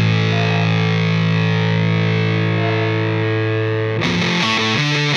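Rock music with a distorted electric guitar: a chord is held, then a choppy rhythmic riff with changing chords begins about four seconds in.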